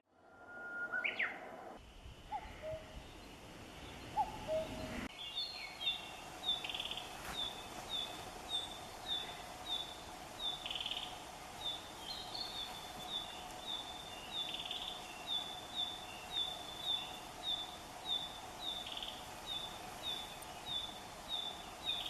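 Bird calling: a few scattered chirps, then from about five seconds in a short high note repeated evenly about twice a second, over a faint steady hum.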